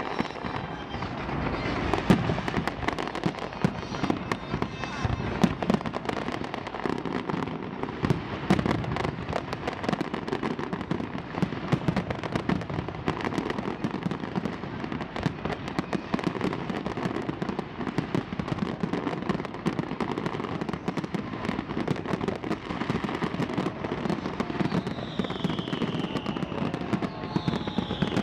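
Many fireworks going off at once: a dense, unbroken crackle of bangs and pops, with two falling whistles near the end.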